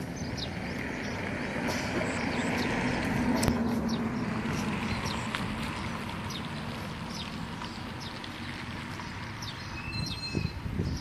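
Outdoor ambience: a steady wash of noise with a low hum that swells and fades over the first few seconds, with scattered short bird chirps and a brief whistled call near the end.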